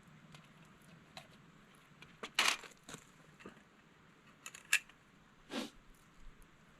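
Scattered light clicks and a few short rustles of small metal parts being handled: 17 HMR cartridges being loaded into the Savage 93R17 rifle's five-round magazine.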